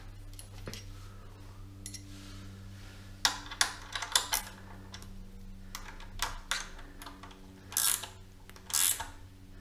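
Hand ratchet working a bolt at the bottom of a motorcycle fork leg by the front axle: metal clicks as the tool goes on, then two short runs of ratchet clicking about a second apart near the end.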